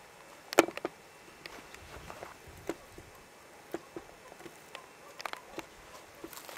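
Irregular small clicks and crackles, a few each second, with one sharper click about half a second in, over a faint steady background.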